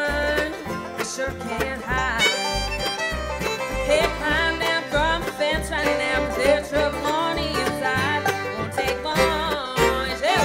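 Live bluegrass band playing: banjo, fiddle, mandolin and acoustic guitars over a steady plucked upright bass beat.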